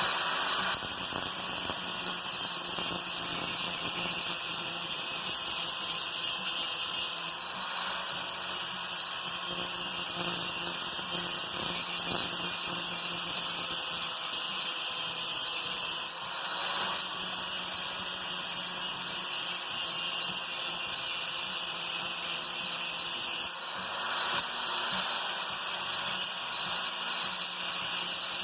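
Small handheld electric grinder running with its wheel grinding the edge of a steel lawn mower blade to sharpen it. It makes a steady high whine, and the sound shifts abruptly every seven or eight seconds.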